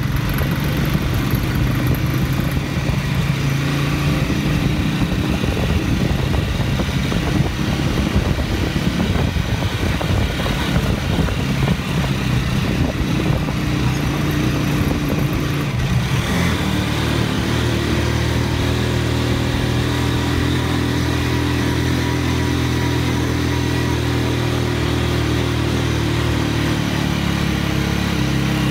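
Motorcycle engine of a tricycle (a motorcycle with a passenger sidecar) running, heard from inside the sidecar. The first half is rougher and rattly over the unpaved dirt road, then the engine settles into a steadier note about halfway through.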